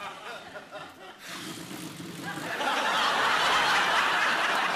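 Studio audience laughing. It starts low about a second in and swells to a loud, sustained laugh by about two and a half seconds in.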